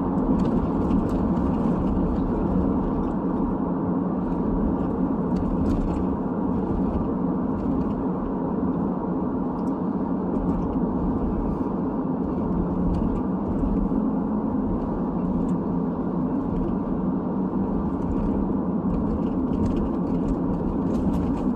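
Steady road and tyre noise of a moving car, heard from inside the cabin, with faint scattered ticks over it.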